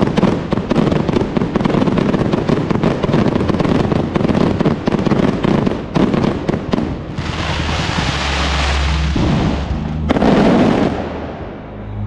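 Fireworks and firecrackers going off in a dense, rapid crackling volley, followed by a hissing rush and another loud burst that fades away near the end.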